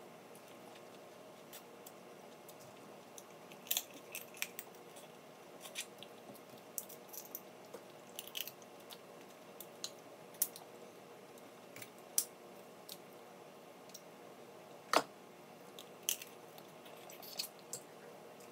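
Snow crab legs being cracked and picked apart by hand: scattered sharp shell cracks and clicks at irregular intervals, the loudest about fifteen seconds in, over a faint steady hum.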